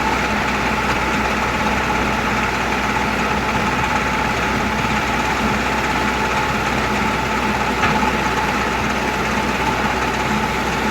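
Harvesting machinery running steadily in a wheat field: a constant engine drone with a steady high whine over it, and a brief click about eight seconds in.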